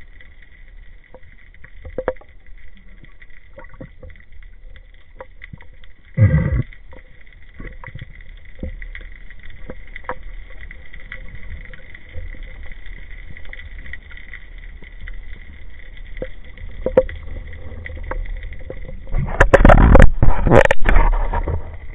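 Underwater sound picked up by a camera in a waterproof housing: a low rumble with a steady faint high tone and scattered faint clicks. A short loud rush of noise comes about six seconds in, and a longer, louder rush comes near the end.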